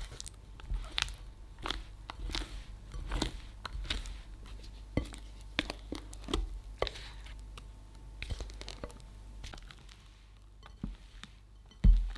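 Spatula folding whipped cream and melted chocolate in a glass bowl: soft, wet squelches with irregular light clicks and scrapes of the spatula against the glass. A few heavier knocks come near the end.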